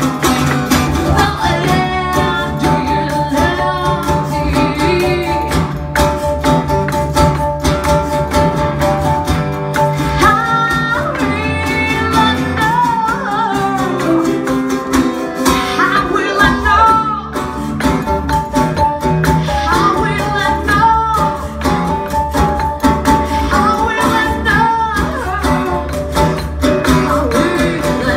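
A woman singing a melody with a live band, backed by acoustic and electric guitars and keyboard.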